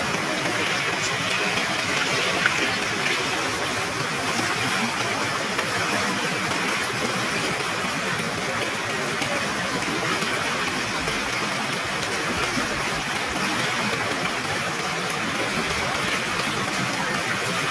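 Steady, unbroken rush of fast-flowing monsoon water from a waterfall and river current.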